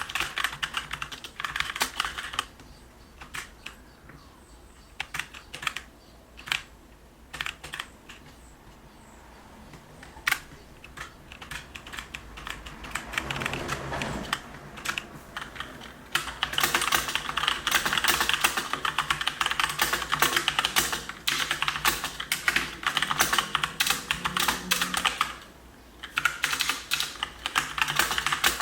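Mechanical gaming keyboard with brown tactile switches being typed on: quick runs of keystrokes broken by pauses and scattered single key presses. The longest, densest run comes in the second half.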